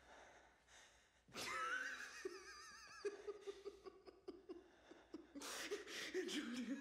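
A man laughing, starting about a second and a half in with a high, wavering cry and then going on in short pulses.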